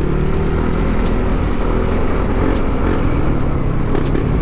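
Yamaha NMAX 155's single-cylinder scooter engine running on the move through a gutted stock (kalkal) exhaust. A few light pops come from the pipe in the second half: the backfiring that the opened-up muffler gives.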